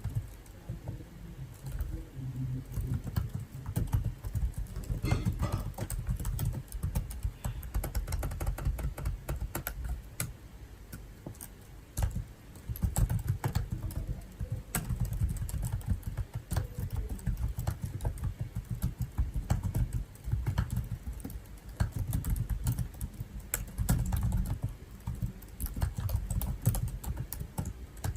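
Typing on a computer keyboard: quick, irregular keystrokes with a dull, thuddy low end, easing off briefly twice before picking up again.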